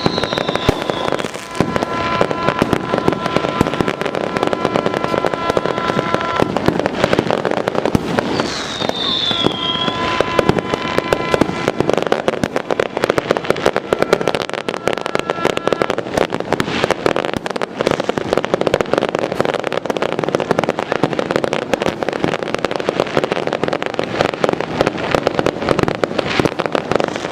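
A dense fireworks display: a continuous rapid rattle of bangs and crackling. A falling whistle comes near the start and another about nine seconds in, and a pair of steady high tones is held for several seconds twice.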